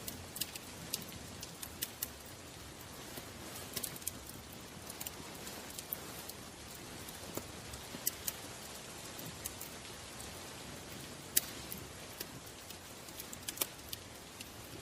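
Ambient soundscape: a steady hiss with scattered, irregular sharp crackles and pops.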